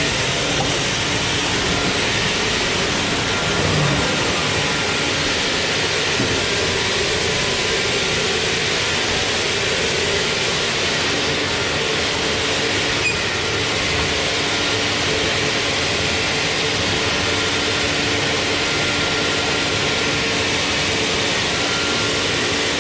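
Sawmill machinery running with a loud, steady, unbroken noise carrying a few faint steady hums.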